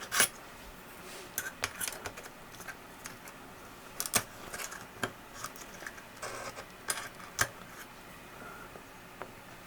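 Scattered, irregular sharp clicks and taps of small hard objects being handled, with the loudest just after the start and about four seconds in.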